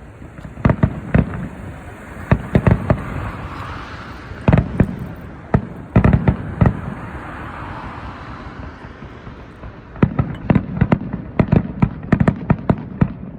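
Aerial fireworks bursting: loud bangs in small scattered clusters, then a rapid run of many bangs over the last few seconds.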